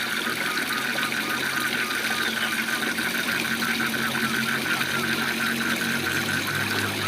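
Steady rush of a waterfall with frogs calling in a rapid repeated chorus, about four to five calls a second, over a low steady hum.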